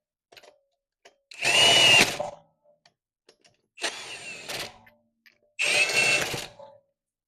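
Cordless impact wrench with a 21 mm socket spinning lug nuts off in three bursts of about a second each, the middle burst quieter than the other two.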